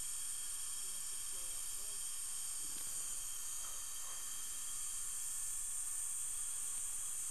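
Steady high-pitched hiss, even and unchanging throughout.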